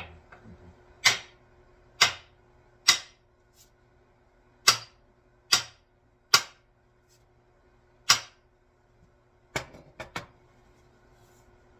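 About ten sharp wooden knocks, roughly a second apart, with a quick double knock near the end: the axe head being driven down onto its new handle to seat it.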